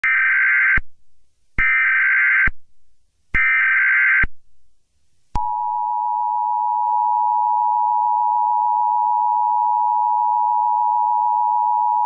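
Emergency Alert System header: three short bursts of SAME digital data tones, a warbling screech each under a second long and about a second apart, then about five seconds in the steady two-tone EAS attention signal starts and holds.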